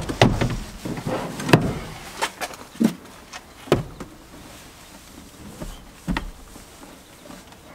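A Suzuki Jimny's front seat being worked by its side adjustment lever and handled: about seven sharp clicks and knocks of the seat mechanism and plastic trim, most in the first four seconds, the loudest about a second and a half in, and one more about six seconds in.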